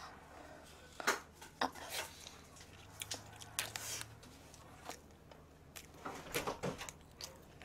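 Eating sounds: scattered small clicks and soft, wet bites and chewing as a sauce-dipped soft bread is bitten and chewed close to the microphone.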